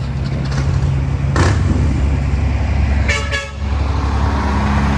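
A semi truck's horn gives one short blast about three seconds in, over the steady low rumble of a diesel truck engine running close by. A brief hiss is heard about a second and a half in.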